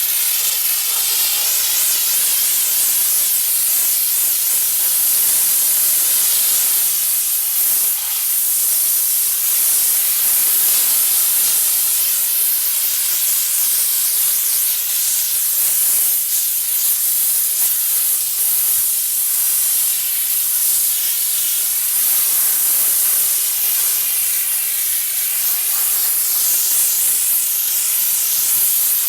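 Diesel-fired steam car washer jetting steam from its spray gun: a steady, loud, high hiss.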